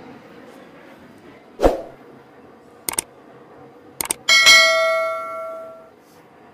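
Subscribe-button sound effect: a thump, a few sharp mouse clicks, then a bright bell ding that rings out and fades over about a second and a half.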